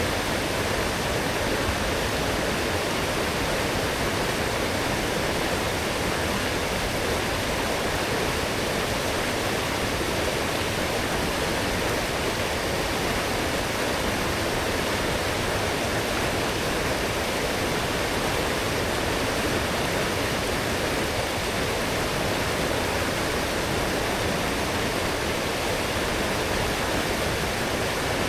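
Forest stream running strong and full after heavy rain: a steady rush of flowing water.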